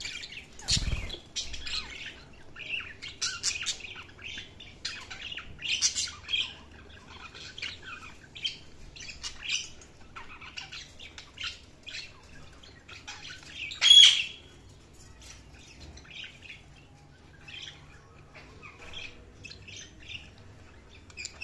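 Budgerigars chirping and chattering in a continuous stream of short, high chirps, with one louder call about two-thirds of the way through. A brief dull thump about a second in.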